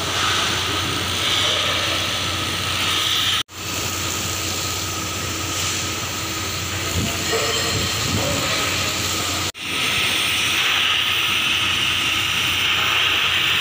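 Oxy-fuel gas welding torch flame hissing steadily as filler rod is melted onto a bronze ship's propeller blade, with a steady low hum underneath. The sound drops out for an instant twice.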